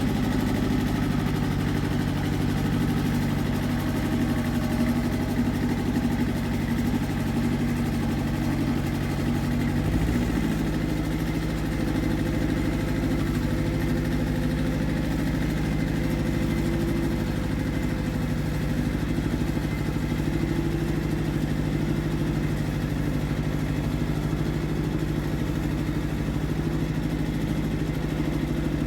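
Iseki TX1300 compact tractor's engine running steadily under load while pulling a plough, with a slight rise in engine pitch about ten seconds in.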